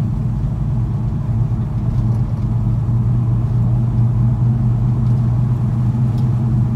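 1977 Chevrolet C10's small-block Chevy V8, breathing through new headers and aftermarket mufflers, cruising at a steady speed, heard from inside the cab as a steady low exhaust drone.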